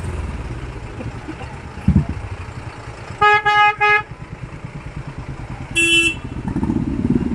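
A motorcycle engine running, with a vehicle horn beeping three times in quick succession about three seconds in. A second, different horn toots once near the end.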